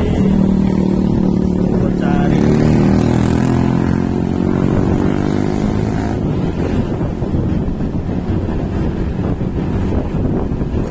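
A road vehicle's engine running, its note sinking between about two and six seconds in, after which it blurs into a rough rumble with wind buffeting the microphone.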